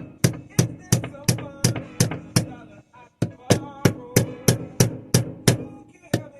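Hammer tapping a pin punch to drive a roll pin into a pistol frame: about fifteen sharp metallic strikes at roughly three a second, each with a short ring, pausing briefly a little before the middle.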